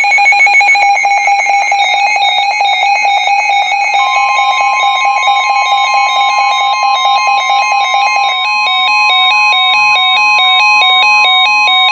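NOAA Weather Radio alert for a flash flood warning: a fast-pulsing electronic beep alarm, joined about four seconds in by the steady 1050 Hz warning alarm tone. Near the end the beeps switch to alternating between two pitches.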